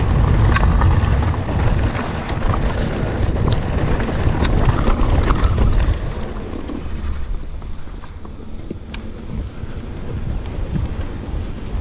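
Wind buffeting the microphone of a mountain biker's action camera during a fast trail descent, with sharp clicks and rattles from the bike over the rough ground. About six seconds in it eases as the bike rolls out onto smoother ground and then a paved road.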